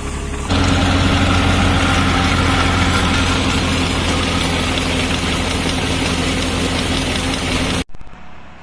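An engine running steadily, with a low even hum that steps up in loudness about half a second in and cuts off suddenly near the end.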